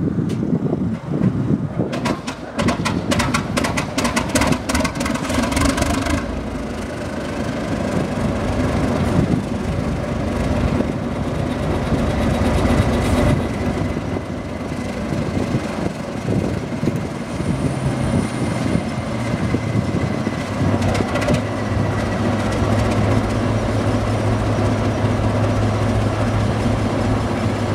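Class 749 diesel locomotive's six-cylinder ČKD engine starting up. About two seconds in it clatters rapidly for about four seconds as it cranks and fires, then settles into a steady idle, with a faint high whine partway through and a steady low hum building near the end.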